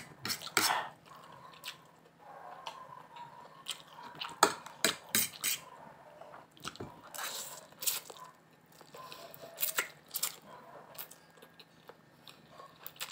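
Close-up eating noises: wet chewing and smacking of a mouthful of stir-fried instant noodles, mixed with sharp clinks and scrapes of two metal forks on a plate as the noodles are worked loose.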